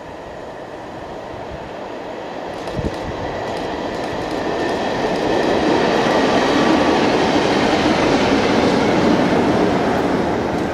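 Class 47 diesel locomotive 47818, with its Sulzer twelve-cylinder engine, and an inspection saloon passing at speed. Engine and wheel-on-rail noise build steadily as the train approaches, are loudest about six to nine seconds in, then begin to fade. There is a single sharp knock about three seconds in.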